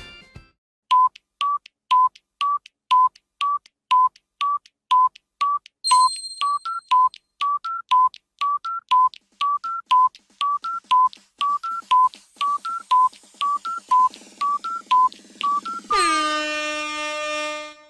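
Countdown-timer sound effect: short beeps about two a second, some pitched a little higher from about six seconds in. At about 16 seconds it gives way to a long ringing tone that marks time up.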